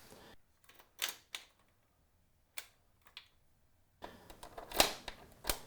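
A few scattered light clicks and taps from a pair of keys on a leather fob being handled.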